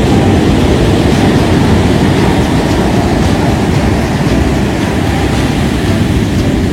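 Steady, loud low rumble of a moving vehicle running at an even pace.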